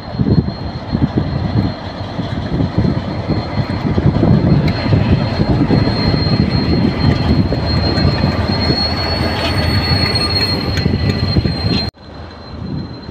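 Two KiwiRail diesel-electric locomotives, a DFM and a DC class, running light past close by: a heavy steady engine rumble with a thin high-pitched whine on top and some clicks from the wheels on the track. Near the end the sound drops abruptly to a quieter, more distant train rumble.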